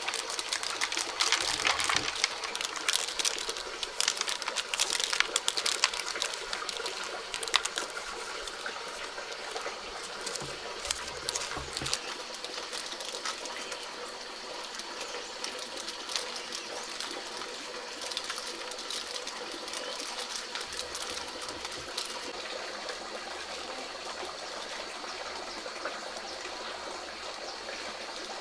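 Dried corn being shelled by hand: a dense crackle of clicks as kernels are twisted off the cob and patter into a woven basket, busiest over the first eight seconds or so and sparser after. A steady hiss runs underneath throughout.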